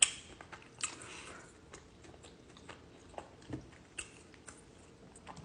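Close-up mouth sounds of someone chewing a burrito: scattered wet smacks and clicks at an irregular pace.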